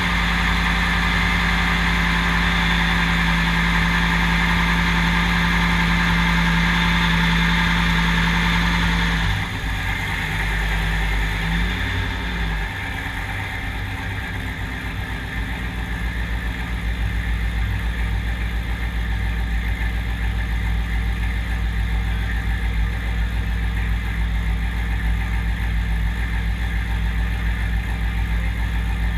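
Ultra4 buggy's cammed 6.0-litre LQ9 V8, breathing through a single 3-inch DynoMax Race Bullet exhaust, running just after its first-ever start. It holds a steady fast idle for about nine seconds, drops, wavers briefly, then settles into a lower idle.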